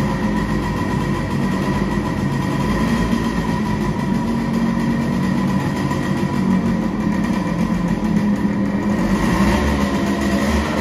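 Yamaha RX100's 98 cc two-stroke single-cylinder engine idling steadily, its exhaust joint freshly packed as a makeshift seal that the owner believes has largely stopped the exhaust leak.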